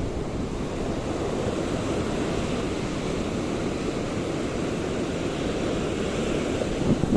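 Steady rushing noise of wind buffeting the microphone, with waves washing in the background.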